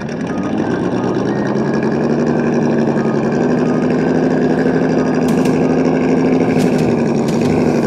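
Holmes Hobbies Trailmaster 550 brushed electric motor and geartrain of a 1/8-scale RC crawler whining steadily as the truck creeps forward, rising slightly in pitch over the first second. A few sharp ticks come in the last few seconds.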